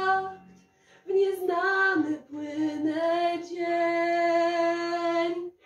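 A woman singing a Polish pop song solo, holding long, steady notes. The voice breaks off briefly about half a second in and stops shortly before the end.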